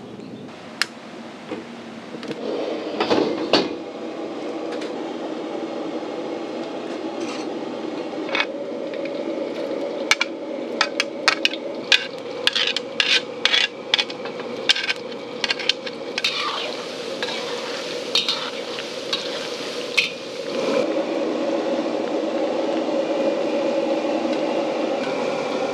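Metal spatula clacking and scraping against a steel wok, with a quick run of sharp strikes in the middle, over oil sizzling in the wok. Near the end the sizzling grows louder and steadier as pieces of smoked flying fish fry in the hot oil.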